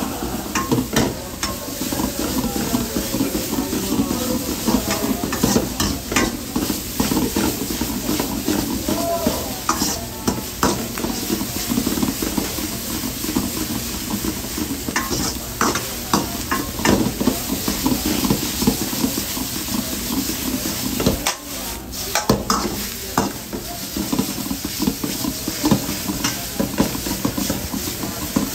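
Noodles with shrimp, onion and egg sizzling in a wok while a metal ladle stirs and scrapes through them, clacking against the wok again and again.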